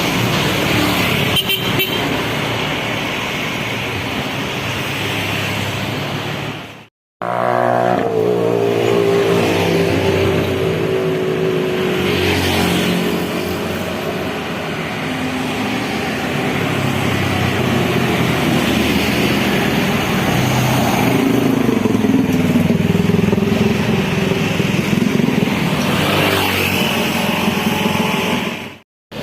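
Tour buses passing on a road, their engines running loud, with a pitched tone falling as one goes by and a wavering, snaking telolet basuri horn melody in the second half. The sound cuts out briefly about seven seconds in.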